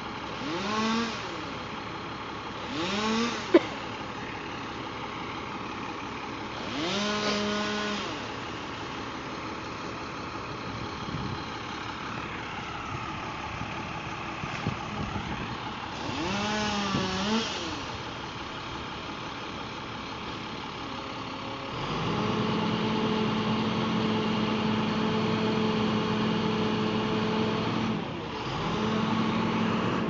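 A two-stroke chainsaw up in a tree is revved in several short blips, each rising and falling in pitch, then held at steady full throttle for about six seconds while cutting, and again near the end. A low engine idles steadily underneath, and there is one sharp click a few seconds in.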